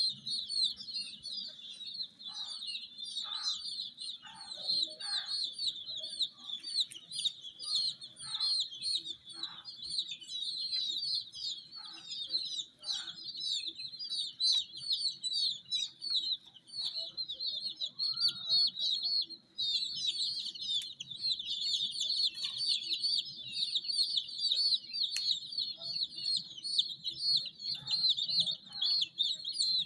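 A group of domestic chicks peeping continuously, many high, short chirps overlapping, with scattered lower calls among them. A faint steady hum runs underneath.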